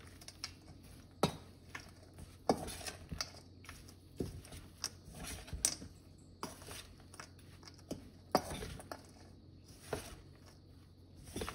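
A utensil clinking and scraping against a bowl at irregular intervals as a cheese, corn and herb filling is stirred together.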